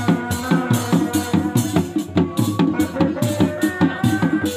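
Sundanese Reak ensemble music: dog-dog frame drums beaten in a fast, steady interlocking rhythm of several strokes a second, with a melody line moving in steps above the drums.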